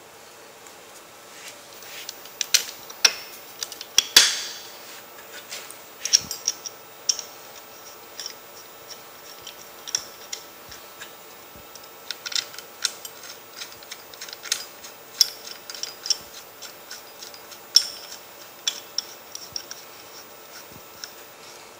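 Irregular light metallic clicks and clinks of hard parts being handled and fitted by hand: the side cover and its nuts going onto a hot saw.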